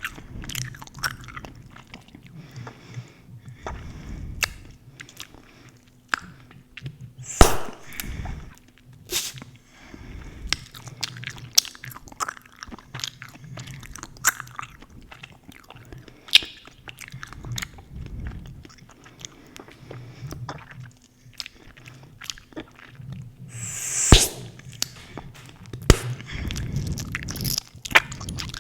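Close-miked chewing gum: moist smacking and dense sharp clicks from the mouth, with two louder sharp pops, one about seven seconds in and one near the end, the second after about a second of rising breathy hiss.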